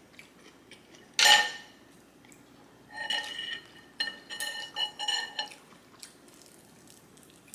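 Tableware handled during a meal: one sharp, ringing clink about a second in, then a run of short ringing clinks for about two seconds.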